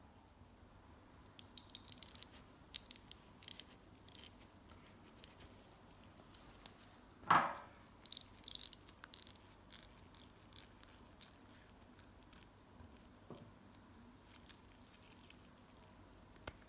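A cloth rag rubbing and rustling against small chrome bicycle parts as they are wiped clean, in a run of short scratchy strokes, with one louder squeak about seven seconds in.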